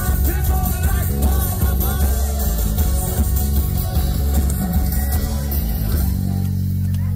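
Live calypso band playing loud, bass-heavy music, which settles into one long held chord about six seconds in as the song ends.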